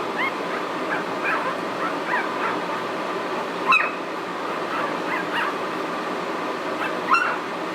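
Two-week-old puppies, eyes still closed, squeaking and whimpering in short, high cries that rise and fall in pitch, with two louder squeaks near the middle and near the end. This squeaking is typical of blind newborn puppies finding each other by sound.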